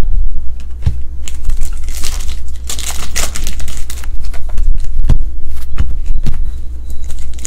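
Foil trading-card pack wrapper being torn open and crinkled by hand, with a run of rustling and small clicks as cards are handled, heaviest about two to three and a half seconds in. A steady low hum runs underneath.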